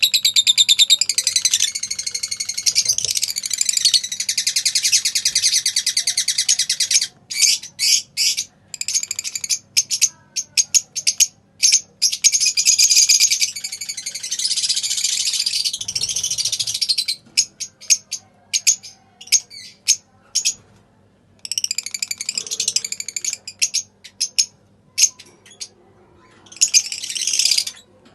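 Lovebirds chattering and singing: stretches of rapid, high-pitched warbling chatter alternate with runs of short, separate chirps and brief pauses.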